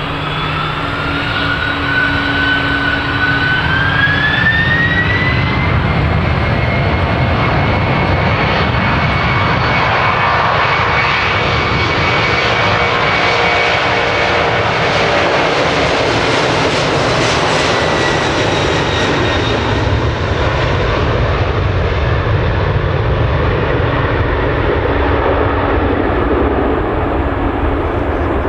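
Boeing 767-300's twin jet engines spooling up to takeoff power, a whine rising in pitch over the first few seconds and then holding steady. A loud jet roar runs beneath it as the airliner accelerates down the runway past the listener and lifts off. The roar is fullest midway and eases slightly as the aircraft climbs away.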